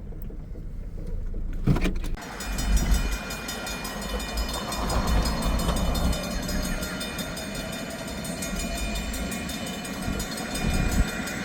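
Railroad crossing warning bell ringing in rapid, even strokes, starting suddenly about two seconds in, over a low engine rumble.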